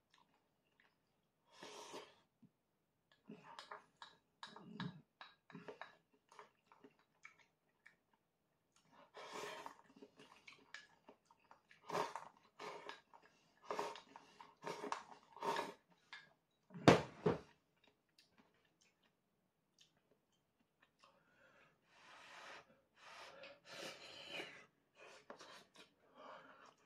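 A person eating ramen noodles and soup from a bowl: bursts of chewing and slurping, with light clicks of a wooden ladle and bowl and one louder thump about two-thirds of the way through.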